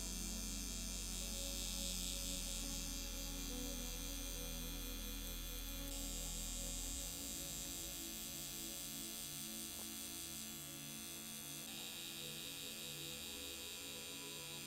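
Permanent-makeup tattoo pen running with a steady electric hum, its tone shifting a few times.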